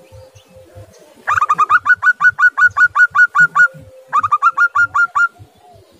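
Zebra dove (perkutut) calling: a loud run of quick staccato notes, about eight a second, beginning about a second in, then a short pause and a second, shorter run.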